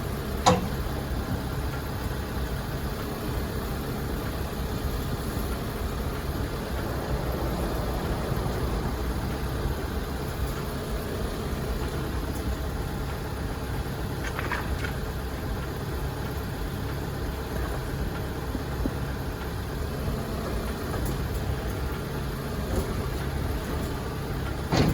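An engine idling steadily, with a sharp click about half a second in.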